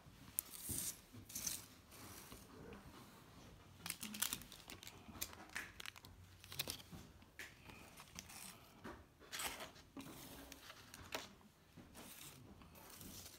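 Translucent paper specimen envelopes rustling and crinkling as they are handled, in short irregular bursts.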